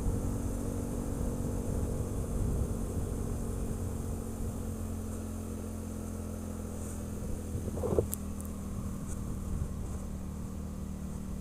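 ATV engine idling at a steady speed. About eight seconds in there is one brief short sound with a sharp click.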